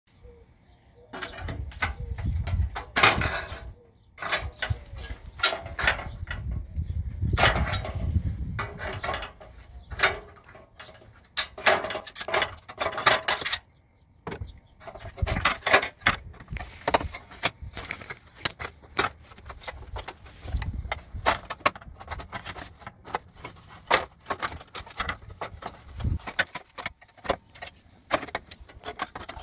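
Irregular clicks, knocks and light rattles, with a low rumble in stretches.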